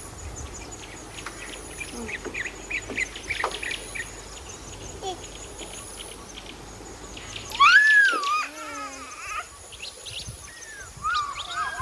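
Birds chirping in quick short notes throughout, with a louder high, warbling call about eight seconds in.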